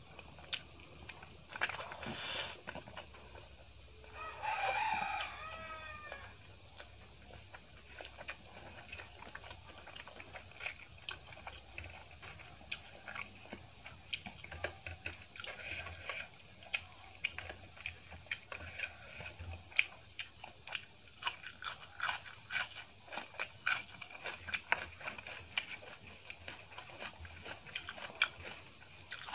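Eating sounds: a hand mixing rice on a steel plate, with chewing and many small clicks and smacks. About four seconds in, a rooster crows once in the background, the loudest sound here.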